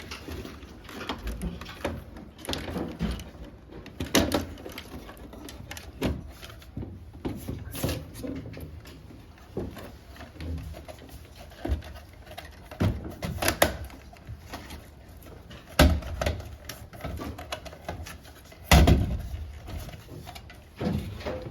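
Irregular clicks, knocks and clatters of air-conditioner parts being handled during work on a ceiling-cassette unit, with two heavier thumps in the second half.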